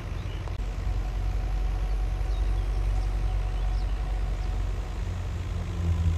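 Tractor-driven crop thresher running steadily: a low, even engine drone with a faint steady whine above it.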